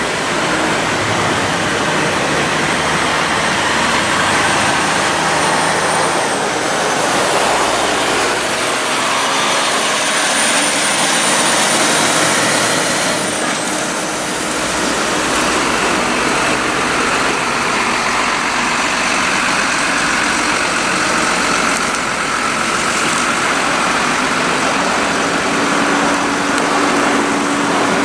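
Heavy trucks and cars passing close by in a slow line: diesel engines and tyres making a loud, steady roar, with a few faint shifting whines over it.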